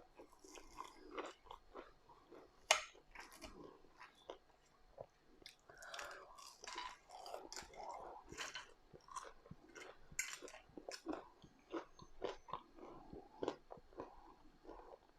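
Chewing and mouth sounds of a person eating, with wet smacks and occasional crunches, irregular throughout. One sharper crunch or click stands out about two and a half seconds in.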